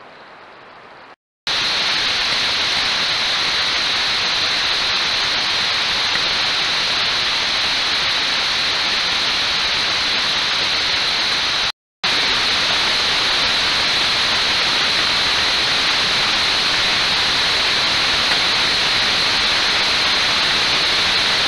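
Steady, loud static hiss from a trail camera's own microphone and recording circuit; no sound from the deer stands out above it. The hiss starts abruptly after a short drop-out about a second and a half in, and cuts out for a moment around twelve seconds where one clip ends and the next begins.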